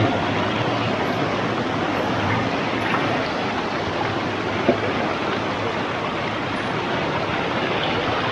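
Steady rush of a rocky hill stream cascading over stones, with a single short knock a little past halfway.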